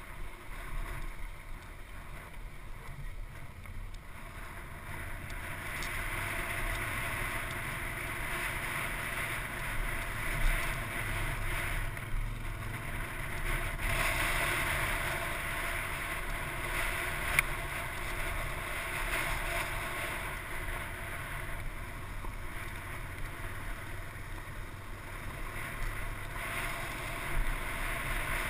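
Off-road motorcycle engine running under way on a rough, rocky dirt trail, heard from a helmet-mounted camera with wind rushing over the microphone. It grows louder after the first few seconds, and a few sharp knocks stand out along the way.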